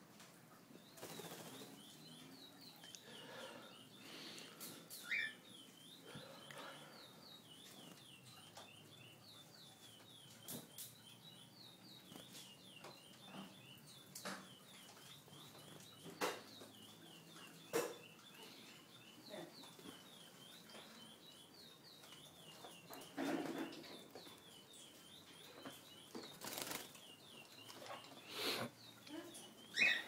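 A pet bird chirping a faint, steady run of short, high notes, about three a second, with scattered clicks, knocks and brief rustles close by.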